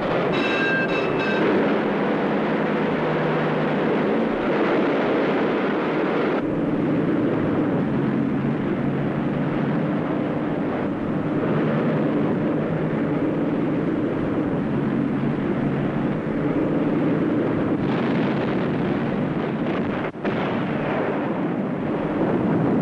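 Steady, loud roar of a fast motor torpedo boat's engines with rushing water, from an old film soundtrack. A brief high whistle sounds in the first second or so, and the hiss thins about six seconds in and returns near the end.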